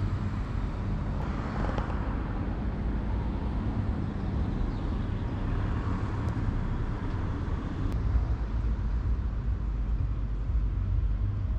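Steady low outdoor rumble with no distinct foreground sound.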